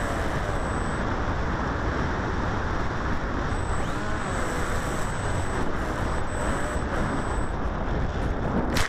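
Wind rush and the motor and propeller of a 900 mm popwing FPV flying wing, heard from its onboard camera microphone in flight, with a faint whine rising and falling as the throttle changes. A sharp loud crackle comes near the end.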